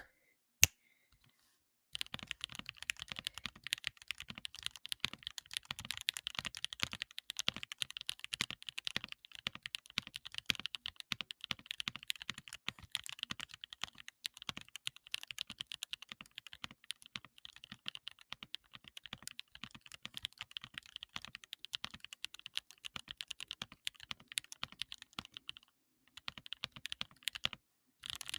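Custom 75% mechanical keyboard with Milky Yellow switches being typed on quickly and continuously in a thocky sound test, starting about two seconds in, with a short pause near the end.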